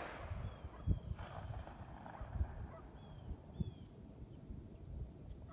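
Open-field ambience: a steady high insect trill, a few short chirps from birds, and irregular low thumps of wind buffeting the microphone, the strongest about a second in.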